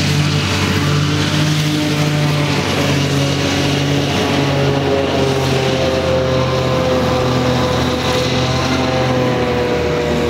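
New Holland tractors running Vicon front- and rear-mounted mowers through standing grass: a steady engine and mower-drive drone with several held tones, one of which slides slowly lower in the second half.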